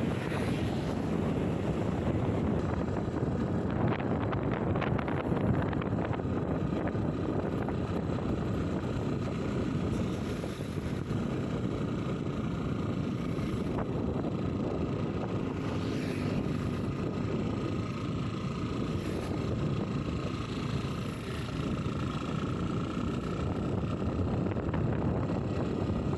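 Strong wind blowing steadily and buffeting the microphone, as a continuous roar with no pauses.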